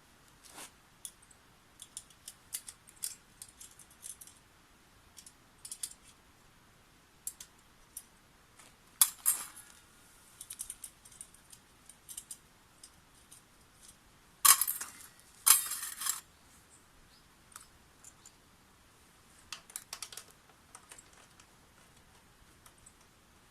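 Small hard metal objects being handled: scattered light clicks and clinks, with louder clattering bursts about nine seconds in and twice around fifteen seconds.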